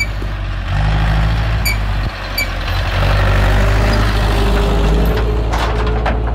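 Farm tractor's diesel engine running as it drives past close by, louder as it draws level, with knocks and rattles from its metal trailer near the end as the trailer goes by.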